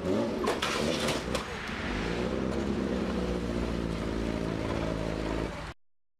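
A vehicle engine running steadily with wind noise over it, with a few sharp clattering knocks in the first second or so; the sound cuts off abruptly near the end.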